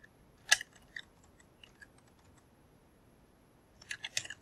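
Computer keyboard keystrokes and clicks as values are typed into a spreadsheet-style table. There is one sharp click about half a second in, a few light taps, then a quick run of keystrokes near the end.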